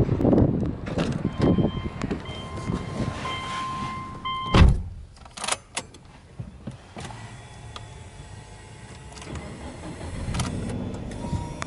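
A car's door-open warning chime sounds steadily for a few seconds, with handling noise, until the driver's door of a Subaru Legacy B4 shuts with a loud thud about four and a half seconds in. After that there is quieter cabin sound with small clicks as the ignition is switched on.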